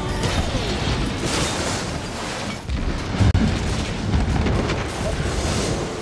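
Film sound effect of a nuclear blast wave tearing through a town: a dense, continuous rush of wind and flying debris, with one sharp crash a little past three seconds in, over music.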